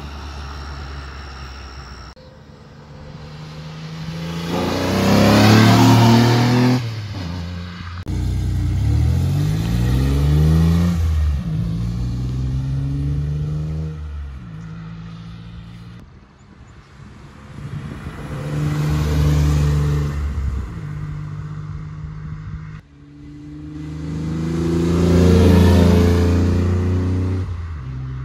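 Chevrolet Beretta's 60-degree V6 through a custom 2.5-inch exhaust, a valved chambered muffler feeding a fiberglass-packed muffler, heard in several drive-bys. Each time the car accelerates past, the exhaust note rises in pitch, swells loud and fades away.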